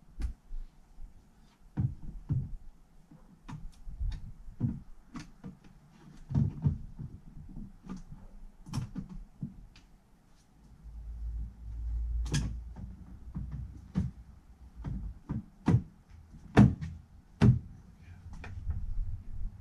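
Irregular plastic clicks, knocks and clunks as a 2006 VW Polo Mk4 rear light cluster is handled and pushed back into its housing. There is a low rumble for a couple of seconds around the middle.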